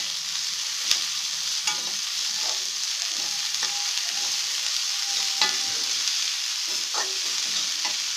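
Moringa leaves with moong dal and onions sizzling in oil in a metal kadai, stirred with a metal spatula that scrapes and clinks against the pan about every second.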